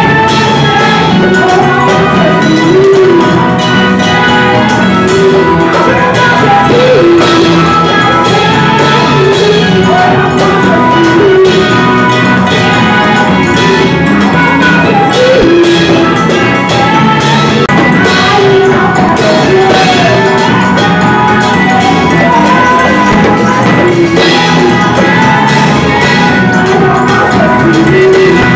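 Live church worship music: women's voices singing into microphones over an electric bass guitar and a steady drum beat, loud throughout.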